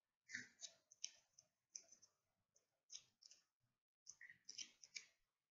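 Faint, irregular clicks, about a dozen in all. A few fall near the start, two or three in the middle, and a quick cluster comes near the end.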